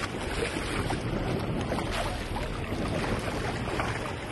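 Wind buffeting the microphone and water rushing against a moving boat's hull on open sea, over a steady low rumble.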